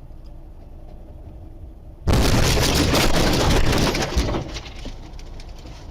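A low rumble, then about two seconds in a sudden loud crash that goes on for about two seconds before dying down.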